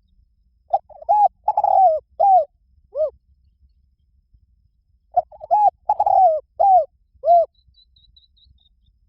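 Spotted dove cooing: two phrases of five or six coos each, about four seconds apart, the last coo of each phrase lower.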